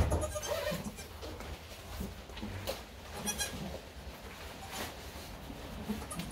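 Goat doe licking her newborn kids clean in straw bedding, with short goat bleats and scattered rustles and licking sounds.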